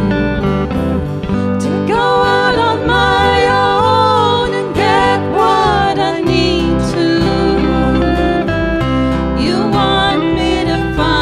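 Live band playing a slow country-style song: a woman sings lead over strummed acoustic guitar and electric guitar, her voice coming in about two seconds in.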